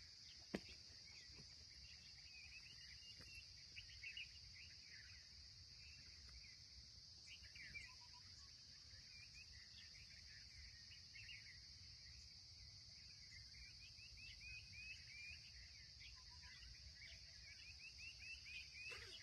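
Faint outdoor nature ambience: a steady, high insect drone runs throughout, with many short bird chirps over it and a low background rumble. There is a single click about half a second in.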